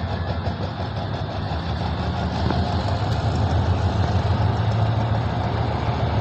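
GE diesel-electric locomotive GEA 4524 running under power as it pulls a passenger train out of a station, with the coaches rolling past; a steady low drone that grows a little louder toward the end.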